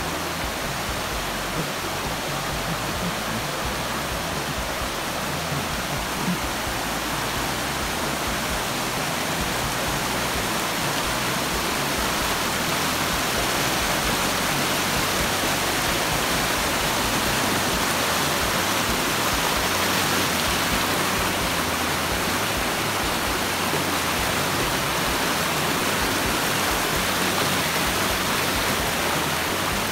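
Fast mountain creek rushing and tumbling over rocks as whitewater: a steady, full rush of water that gets a little louder partway through.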